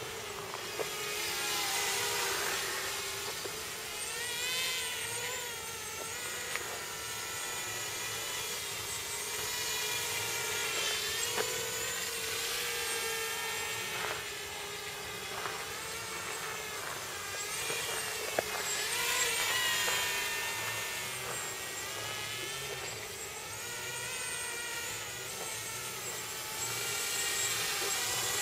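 Tarot 280 FPV racing quadcopter's four electric motors and propellers whining in flight, the pitch rising and falling with throttle and the sound swelling and fading as the drone passes near and away.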